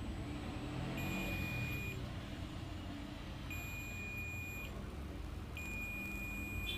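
Digital multimeter's continuity buzzer giving a steady high beep three times, each about a second long, with the last starting near the end, as the test probes touch a low-resistance path of a few ohms.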